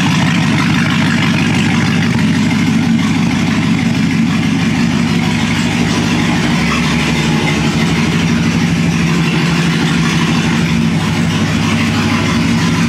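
A car engine running steadily at an unchanging low pitch, as at idle.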